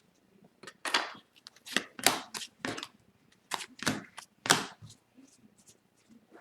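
Upper Deck hockey trading cards being handled and flipped: a run of about ten short, sharp papery swishes and snaps in the first five seconds, then quieter.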